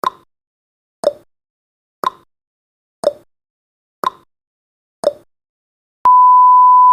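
Countdown timer's clock ticking once a second, alternating a higher tick and a lower tock, six times; about six seconds in the ticking gives way to a steady electronic beep as the timer reaches zero.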